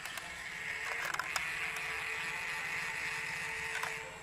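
Small DC gear motors whirring as they drive a plastic-bottle boat's stick paddles through the water. The paddles keep up a fast low churning throughout, and a steady motor whine comes in about a second in and cuts off near the end.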